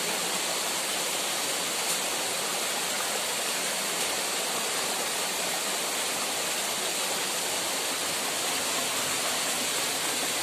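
Steady, even outdoor background hiss with no distinct events, unchanged throughout.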